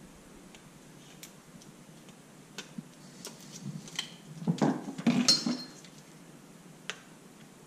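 Scattered light metallic clicks and clinks from hands and a tool handling a bare motorcycle engine. A denser cluster of clinks with a short ring comes about five seconds in.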